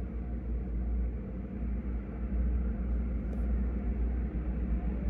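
Low, steady rumble of approaching diesel locomotives, slowly growing louder.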